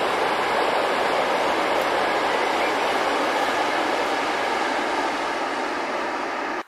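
Passenger train running across a brick-arched railway viaduct: a loud, steady rushing rumble that eases slightly toward the end and then cuts off suddenly.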